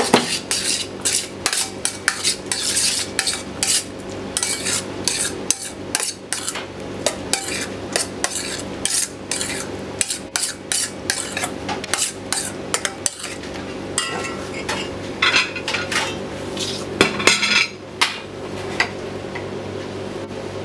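Spoon stirring a scallop tartare in a metal bowl: quick, irregular clinks and scrapes of metal on metal that thin out near the end.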